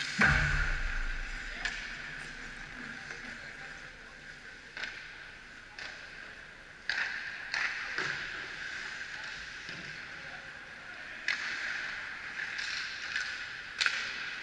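Ice hockey play heard from beside the goal: a heavy knock just after the start with a low rumble for about a second, then a steady hiss with skate scrapes and scattered sharp clacks of sticks and puck.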